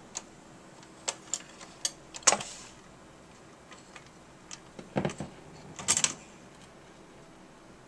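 Magnavox Micromatic record changer cycling between records: a series of sharp mechanical clicks, the loudest about two seconds in, then two heavier clunks around five and six seconds in, over a faint steady hum.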